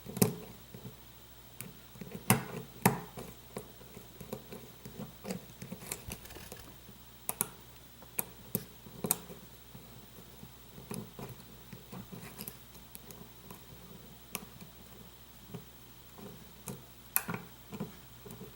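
Lock pick clicking and scraping on the pins of a pin-tumbler lock held under tension, in irregular small metallic clicks with a few sharper, louder ones scattered through.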